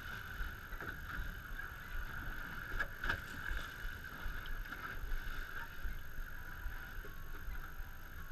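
Steady background noise aboard a small fishing boat on the water: a low rumble under a steady hiss, with a light knock about three seconds in.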